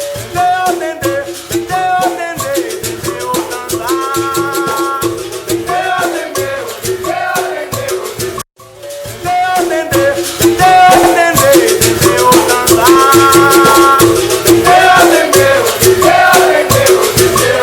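Capoeira music: berimbau struck in a steady rhythm together with a caxixi shaker rattle, with singing over it. A brief break about eight and a half seconds in, after which the music comes back louder.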